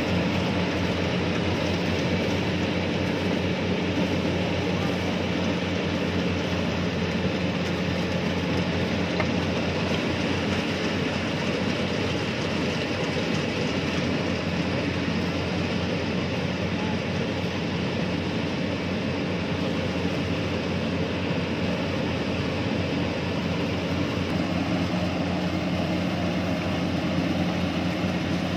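Yanmar YH850 rice combine harvester running steadily as it cuts and threshes rice: a constant diesel engine drone with the clatter of the cutter and threshing drum.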